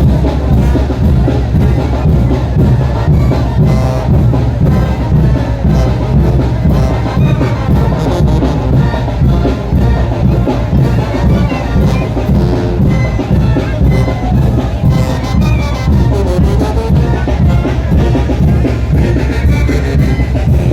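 Brass band playing a son de chinelo: loud brass over drums in a steady, repeating beat.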